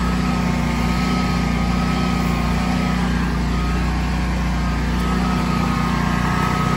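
Kohler home standby generator's engine running steadily under load, its air-intake side smothered by an overgrown shrub. The technician says the blocked intake is starving it for air and making it hunt.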